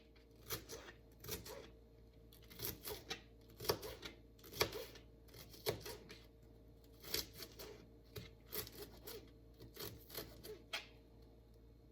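Kitchen knife chopping fresh green onions on a cutting board: irregular sharp taps, about one or two a second, some in quick pairs.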